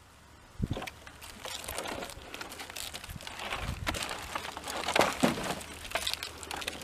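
Pieces of scrap wood clattering, cracking and rustling as they are picked up from a loose sawmill pile, a run of small knocks that gets busier, loudest about five seconds in.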